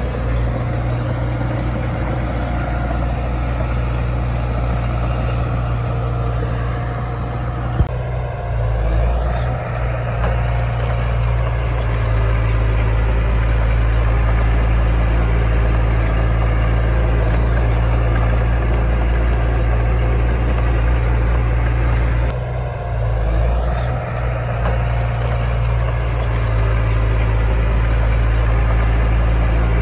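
Heavy diesel earthmoving engine running steadily with a low drone. It eases off briefly about eight seconds in and again a little past twenty-two seconds, with one sharp click just before the first dip.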